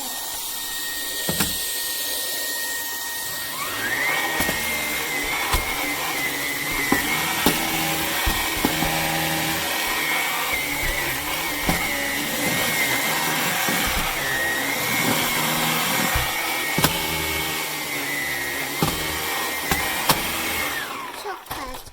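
Vax HomePro Plus cordless stick vacuum running over crumbs along a skirting board, a steady motor whine that rises in pitch about four seconds in, with scattered sharp clicks and knocks from the floor head. The motor winds down and stops near the end. The vacuum is failing to lift the chocolate and crumbs right against the skirting.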